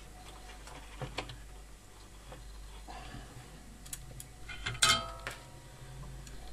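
Small clicks and light taps from hands handling and bending wires at a circuit board, with one louder metallic clink about five seconds in.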